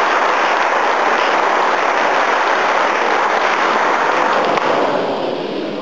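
A crowd applauding, the clapping dying down near the end.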